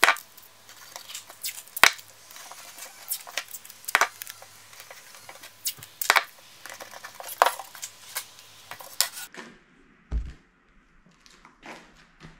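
Blue painter's tape pulled off its roll and torn into strips, giving short sharp rips and taps about once a second. About nine seconds in this stops, leaving a quieter background with one low thump and a few faint clicks.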